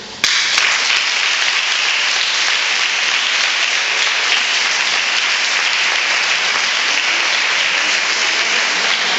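Audience applause, breaking out abruptly a moment in and continuing steadily.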